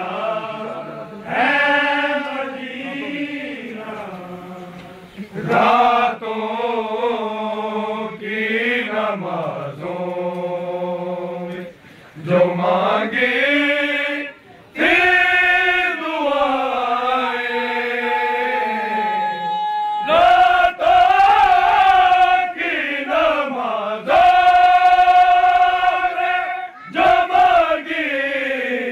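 A group of men reciting an Urdu noha, a Shia mourning lament, in chorus. It is unaccompanied chanting in long, held, gliding melodic phrases, broken by short pauses for breath.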